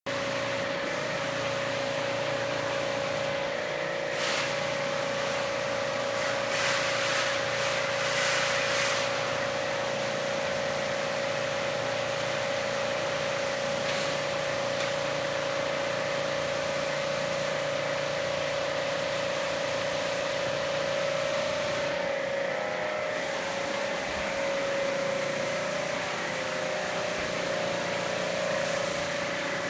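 A small motor-driven pump runs steadily with a constant hum over a hissing spray, typical of a high-pressure washer used to rinse a commercial air conditioner. The hiss swells for a few seconds near the start.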